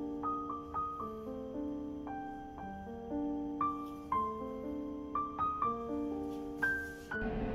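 Slow, gentle solo piano music. Just before the end a steady low hum comes in under it.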